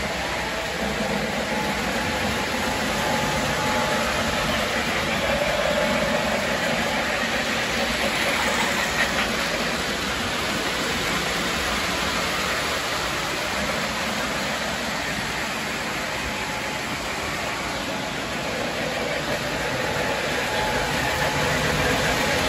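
Model freight trains running on the layout's track: a steady rumble of wheels and motors.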